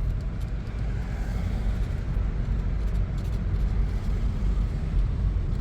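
A car driving, giving a steady low road rumble.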